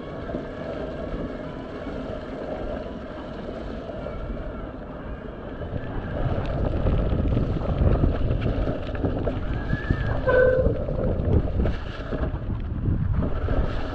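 Electric mountain bike ridden over a wet, muddy woodland trail: wind buffeting the camera microphone, tyres in mud and the bike rattling over roots and bumps, getting louder about six seconds in. A brief squeak about ten seconds in.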